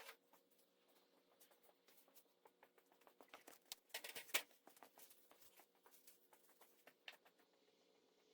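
Faint scattered clicks and light taps, with a denser flurry of them about four seconds in, over a low steady hum.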